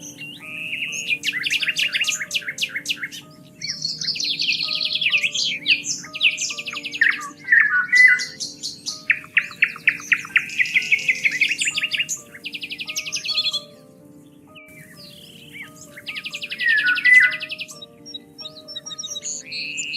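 Several songbirds singing in overlapping fast trills and rapid repeated chirps, with a couple of short pauses, over soft background music of held low notes.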